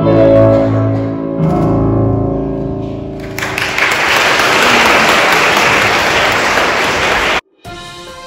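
The last chord of a keyboard-accompanied song is held and fades. About three seconds in, applause starts and runs for some four seconds, cut off abruptly, and light theme music follows near the end.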